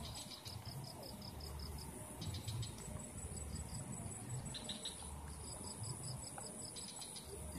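Insects chirping in repeated trains of quick high-pitched pulses that stop and start, over a steady high-pitched whine and a low rumble.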